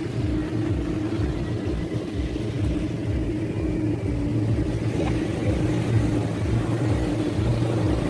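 A steady low rumble with a constant hum underneath, flickering at the bottom end, and nothing sudden over it.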